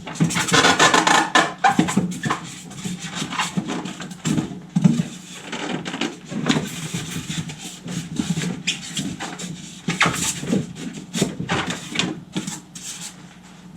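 Irregular clicks, knocks and rustling of packing pieces being handled and worked loose from a new 3D printer.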